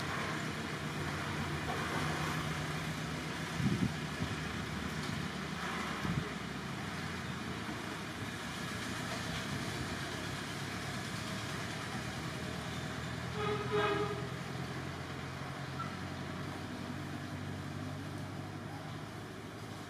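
Steady low engine-like hum, as of a motor vehicle running. About two-thirds of the way through comes one short high-pitched tone lasting about half a second.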